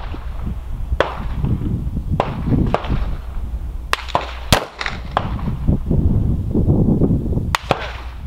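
Gunshots at an outdoor rifle range: a string of sharp cracks at uneven intervals, the loudest about halfway through, over a steady low rumble.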